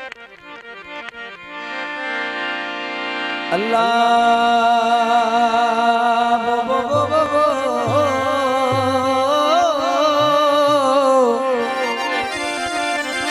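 Traditional devotional music introduction led by a harmonium: quick short notes build up, then a full sustained chord comes in a few seconds in. A sliding, wavering melody plays over it, with low hand-drum strokes underneath from about halfway.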